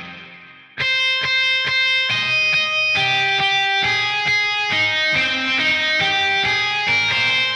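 Music: the previous section fades out within the first second, then a clean, plucked electric guitar plays a melody of single notes, about four a second, each ringing briefly.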